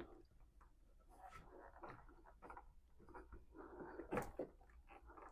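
Near silence with faint, scattered clicks and knocks of hand tools working on a car battery cable, with one sharper click about four seconds in.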